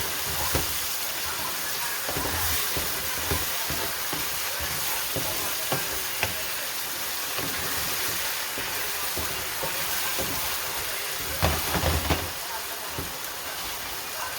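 Spices and garlic frying in a pot, with a steady sizzle, while a spoon stirs them and knocks against the pot now and then; the knocks come more often about three quarters of the way through.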